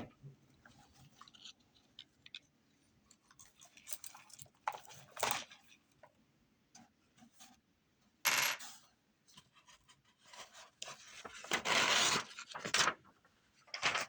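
Intermittent handling noises: scattered clicks and knocks with short scraping or rustling bursts, the longest and loudest lasting about two seconds near the end.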